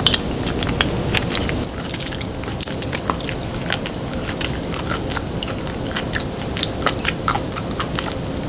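Close-up mouth sounds of a person eating a raw live-octopus tentacle: sucking the tentacle in through pursed lips and chewing it, with many small wet clicks and smacks.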